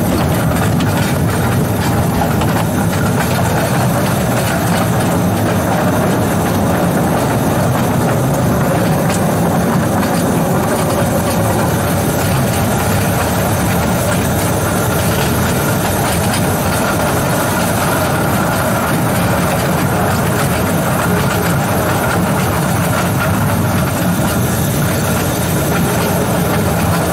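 Narrow-gauge locomotive running steadily along 2-foot-gauge track, heard from its cab: a continuous low rumble from the drive and the wheels on the rails, with a faint steady hum above it.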